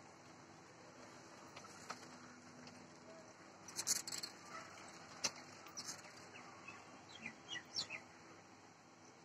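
Faint bird sounds from an egret roost: a few sharp clicks, with a brief cluster about four seconds in, then a string of short high chirps near the end, over a low steady hum.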